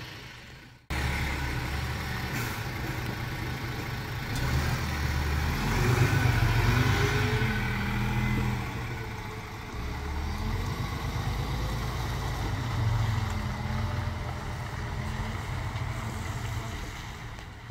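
City bus engine and drivetrain running on the road, sped up to double speed, with revs rising and falling as it pulls away and changes gear over steady road noise. It cuts in abruptly about a second in.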